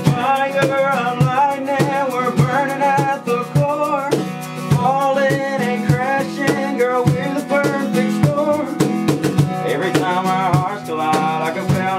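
Live acoustic performance: a strummed acoustic guitar and hand percussion keeping a steady beat, with a male voice singing.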